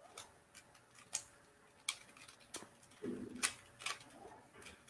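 Faint, irregular plastic clicks of a Rubik's cube being turned layer by layer as it is solved.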